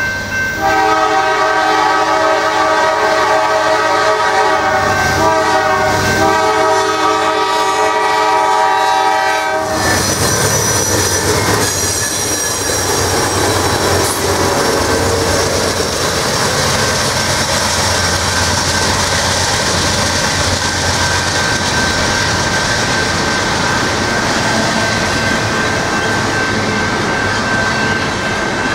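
Norfolk Southern GE C40-9W diesel locomotives sounding their horn, a chord of several notes held for about nine seconds, as they approach a grade crossing. The horn stops and the locomotives pass close by, followed by double-stack intermodal cars rolling past with clickety-clack of the wheels and some wheel squeal. A grade-crossing bell rings steadily throughout.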